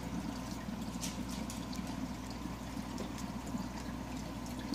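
Reef aquarium's water circulation: steady trickling, splashing water over the low hum of the tank's pumps, with a few faint ticks.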